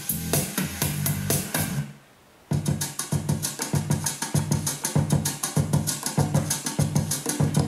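Music played through a Yamaha PDX-11 portable speaker dock from a docked iPhone. About two seconds in the song cuts out, and half a second later a new track starts with a steady drum beat.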